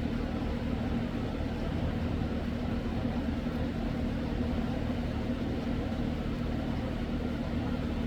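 A steady, unchanging low mechanical drone with a hum, like a running machine.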